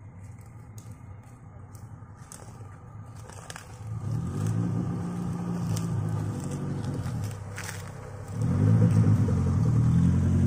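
Suzuki Jimny 4x4's engine working its way up an off-road track: a low hum at first, then pulling harder about four seconds in, easing off briefly and rising again near the end as it comes close.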